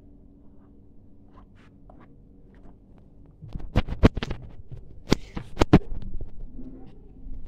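Low room hum, then from about three and a half seconds in, a series of heavy thumps and knocks from footsteps on carpeted stairs, mixed with handling noise from a phone carried in the hand.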